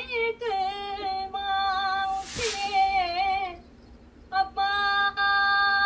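A woman chanting a line of Urdu soz (elegiac recitation) unaccompanied, holding long notes decorated with wavering pitch ornaments (jagah). She pauses briefly past the middle, then resumes on a held note. A short hiss comes a little after two seconds in.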